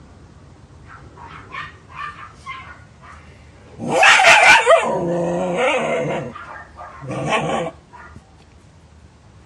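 A dog shut in a plastic pet carrier, barking and growling: a few short yips, then a loud two-second burst of barking about four seconds in, and a shorter bark near the end.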